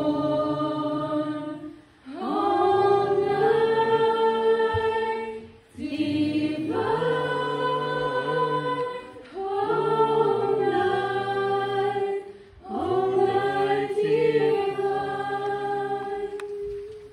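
A group of voices singing a song together in phrases of about three seconds each, with short breaks between them; the last note is held and stops just before the end.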